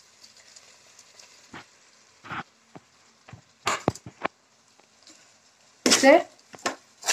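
Kitchen utensils clattering: a spoon knocking against a cooking pot several times, with a louder clatter and scrape about six seconds in.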